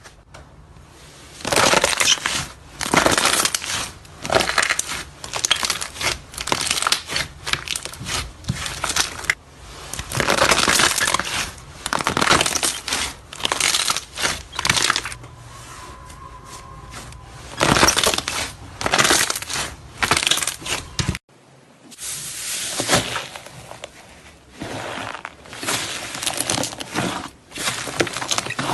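Slime being squeezed and pressed by hand, giving repeated bursts of crackling and popping, a second or so each. A short break comes about two-thirds of the way through.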